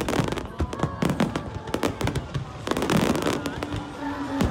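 Fireworks display: aerial shells bursting and crackling, with many bangs in quick succession and a crowd's voices underneath.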